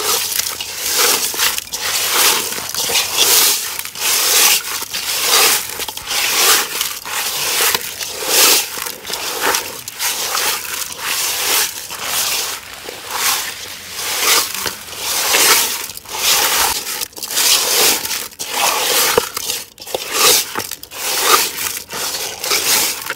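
Hands rubbing and squeezing wet pieces of ribbon fish with salt and turmeric in a stainless-steel bowl, in a steady rhythm of scrubbing strokes a little over one a second. The salt rub cleans off the fish's white, slimy coating.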